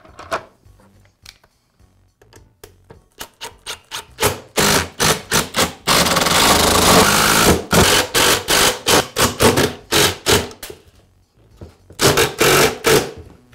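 Makita cordless impact driver driving screws into a plastic blower housing, in bursts of rapid hammering: short pulses, one longer run about six seconds in, more short pulses, and another burst near the end. A few light clicks of the plastic parts being handled come first.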